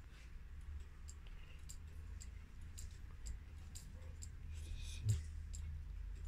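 Small, sharp clicks about twice a second over a steady low hum, with one louder knock about five seconds in.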